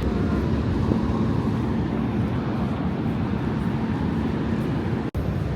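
Steady low rumble of a running vehicle with a constant hum, cut off for an instant about five seconds in.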